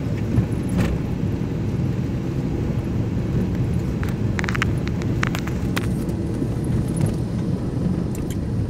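Car driving over a rough dirt track, heard from inside the cabin: a steady low engine and road rumble, with scattered knocks and rattles as it goes over bumps, several close together about halfway through.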